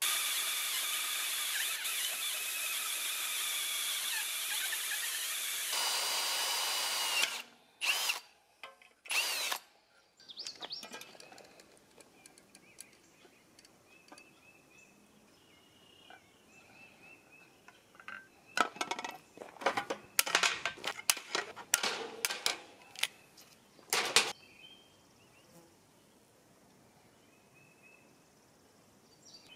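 Pneumatic air drill running steadily as it bores into an aluminium block, its tone changing just before it stops about seven seconds in. Later come scattered clicks and knocks of metal parts and hand tools being handled.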